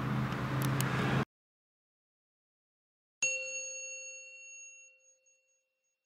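Outdoor background noise with a low steady hum cuts off suddenly about a second in. After two seconds of silence, a single chime sound effect strikes once and rings out, fading over about two seconds.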